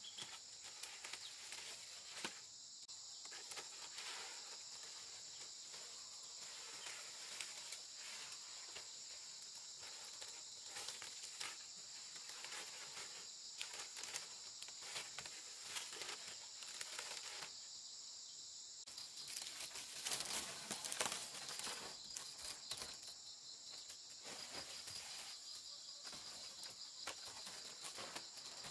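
Steady high insect chorus, with irregular crackling rustles of dry palm-leaf thatch being handled and laid on a roof frame, loudest about two-thirds of the way through.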